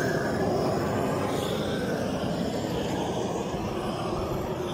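Gas roofing torch burning steadily, its flame played over a bitumen waterproofing membrane to melt it onto the roof.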